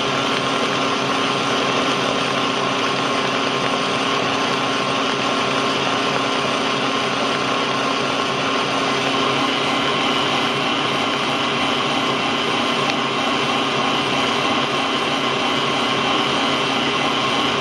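Electric stand mixer running steadily at high speed, a constant motor whine, its balloon whisk beating eggs and sugar in a stainless steel bowl until the mix doubles in volume and turns foamy.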